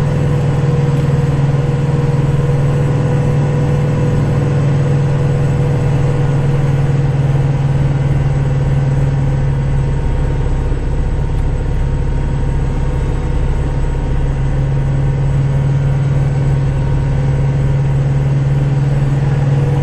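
Kubota tractor's diesel engine running steadily, heard from inside the cab: a constant low drone with a faint steady whine above it.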